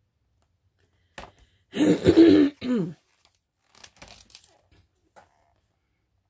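A woman coughs, about two seconds in, in two quick parts. Soft paper rustles and taps follow as a picture-book page is turned and the book handled.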